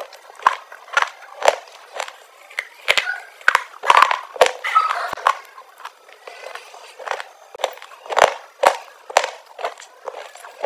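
Close-up mouth crunching and chewing of hard, chalky coloured blocks: sharp crisp crunches about twice a second, with softer grinding between and a quieter pause about halfway through.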